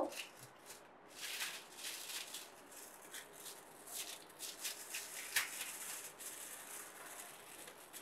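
Aluminium foil crinkling and rustling in short, irregular crackles as it is folded by hand around a cardboard strip, with one sharper crackle a little past halfway.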